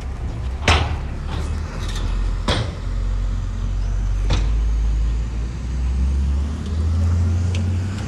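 Heavy diesel earthmoving machinery running with a steady low engine rumble that swells near the end, with three sharp knocks about two seconds apart in the first half.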